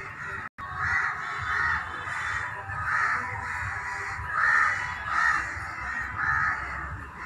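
Crows cawing over and over, a little more than one caw a second. The sound cuts out completely for a moment about half a second in.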